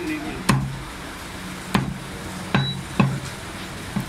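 Meat cleaver chopping goat meat on a wooden butcher's block: five sharp chops at uneven spacing, each with a dull thud from the block.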